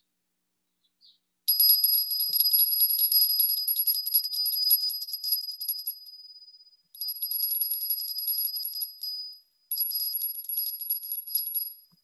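A small high-pitched meditation bell struck three times, each strike ringing with a shimmer and fading, the first ringing longest: the bell that closes a sitting period.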